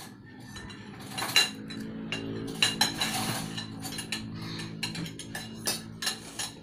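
Metal spoons and forks clinking and scraping against plates during a meal, in short irregular clinks, over a faint steady low hum.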